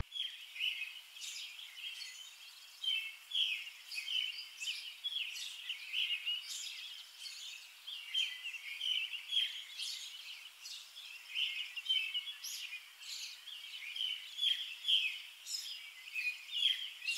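A chorus of small birds chirping: many short, quick, overlapping high chirps with no pause.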